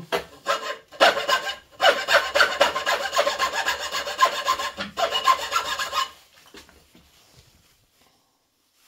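The metal file of a Victorinox Workchamp Swiss Army knife rasping a notch into a piece of wood in quick back-and-forth strokes. The filing starts about a second in, breaks off briefly twice, and stops about six seconds in.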